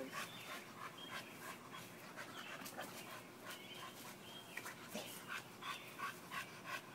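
A small dog panting in a quick, even run of short breaths, winded from running and leaping.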